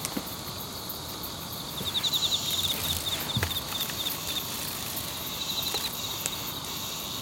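Grass insects chirping: quick trains of high, rapid chirps over a steady high-pitched background trill.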